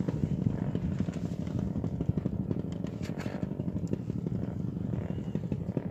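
A small engine running steadily, a rapid even pulse with little change in speed.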